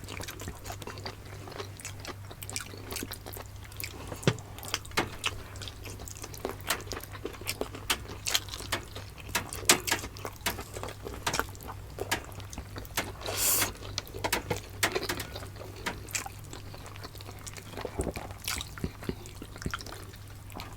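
Close-miked eating: wet chewing, lip smacks and small mouth clicks of people eating pork adobo with rice, over a steady low hum.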